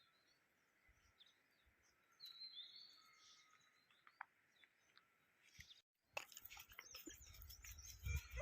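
Faint morning birdsong: assorted small birds chirping and calling, with a short whistled glide about two seconds in. After a brief break about six seconds in, the calls grow busier and a low rumble comes in near the end.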